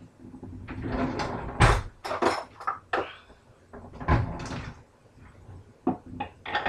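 Kitchen cupboard and utensil clatter: a series of sharp knocks and rattles as a lower cupboard is opened and items, including a funnel, are taken out and handled.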